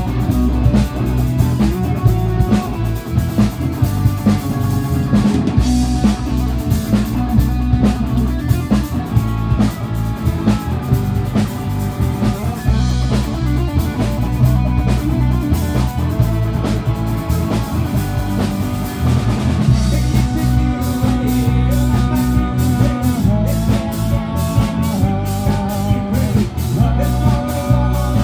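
Rock music with a steady drum-kit beat, bass and sustained instrumental notes, without vocals.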